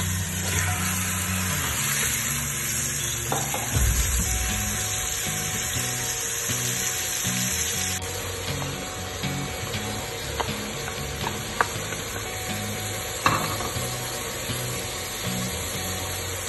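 Mutton pieces sizzling steadily as they sear in hot oil in an aluminium pressure cooker, stirred with a wooden spatula, with two sharp taps of the spatula on the pot later on.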